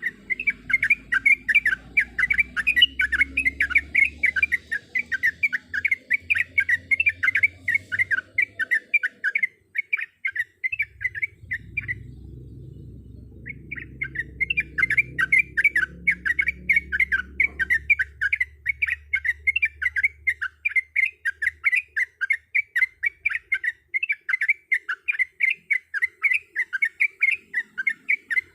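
Yellow-vented bulbul (trucuk) singing a fast run of chattering notes, several a second, with a break of about a second and a half near the middle. A low rumble runs underneath for much of it.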